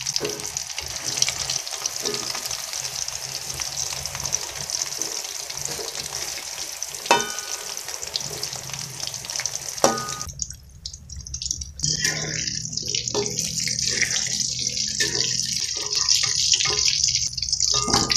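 Eggplant pieces sizzling as they fry in hot oil in a metal wok. A metal utensil clinks against the wok twice, about seven and ten seconds in. The sizzle drops out briefly just after the second clink, then resumes.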